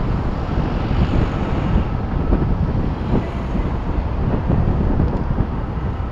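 Wind buffeting the microphone of an action camera mounted on the outside of a moving vehicle, mixed with road noise: a loud, gusty low rumble.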